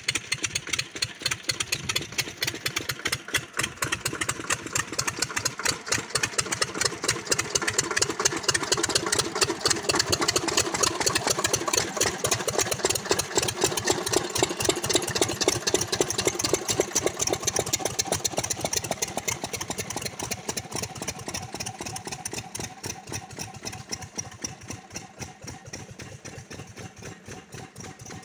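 Stationary single-cylinder diesel pump engines running steadily, driving agricultural water pumps, with a rapid, even chugging of firing beats. It is loudest through the middle and fades near the end.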